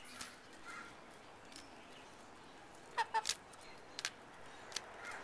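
Hens at a hand-held lettuce leaf: a few short, sharp pecks with brief clucks about three seconds in, then single pecks near four and five seconds.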